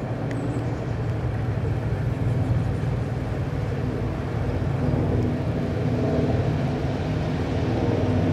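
Narrowboat diesel engine running hard in reverse, a steady low drone that grows slightly louder.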